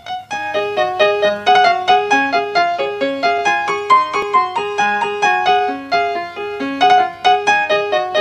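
Background music: a keyboard melody of quick, evenly spaced struck notes, about three a second.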